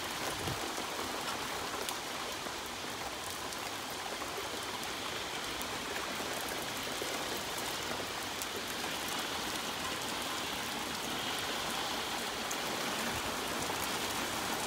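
Heavy rain pouring steadily, an even hiss with many small drops ticking close by.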